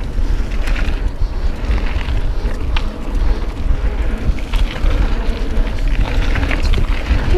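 Wind buffeting the camera microphone during a mountain bike ride, over steady tyre noise on the dirt trail and scattered short clicks and rattles from the bike (a Canyon Spectral AL 7.0).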